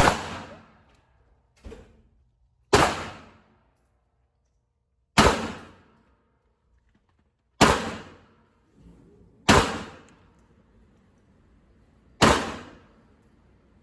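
Gunshots at an indoor shooting range: six loud, single shots fired a few seconds apart, each with a short echoing tail, and a fainter shot from another lane about two seconds in.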